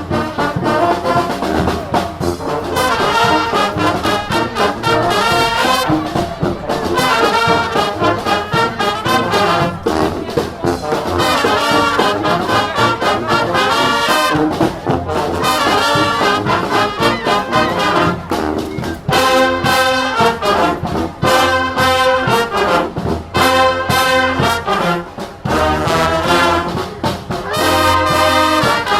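A brass-heavy marching band playing live, with trombones and trumpets over drums keeping a steady beat. About two-thirds of the way through, the horns switch to short, punchy chords with brief gaps between them.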